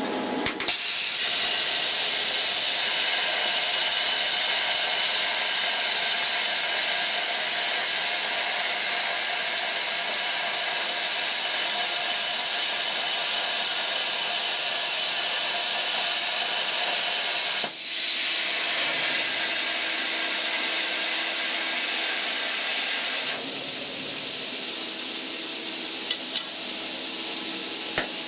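R-Tech CNC plasma cutter's torch cutting 11 mm steel plate: a loud, steady hiss of the cutting arc and its air jet, starting sharply just under a second in. About 18 seconds in the hiss breaks off briefly, then carries on a little quieter with a steady low hum.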